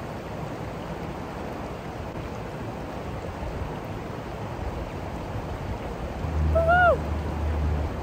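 Steady rush of a rocky mountain trout river flowing over rocks. Near the end a low rumble comes in alongside a shout of "woo-hoo".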